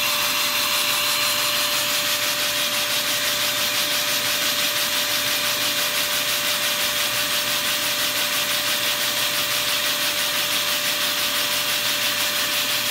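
Shop vacuum running with a steady whine, its suction driving a Lego two-cylinder oscillating vacuum engine whose plastic pistons and parts rattle and rub in a fast, even rhythm.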